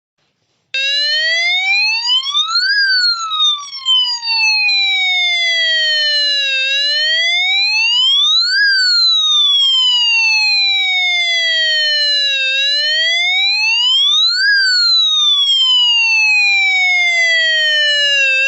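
Electronic police-siren sound chip playing a wail: a buzzy tone that starts about a second in. It rises quickly over about two seconds and falls more slowly over about four, going through three cycles.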